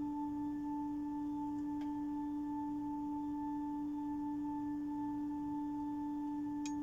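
Pipe organ holding two steady notes, a low one and a higher one, sustained without change. A faint click about two seconds in and another near the end.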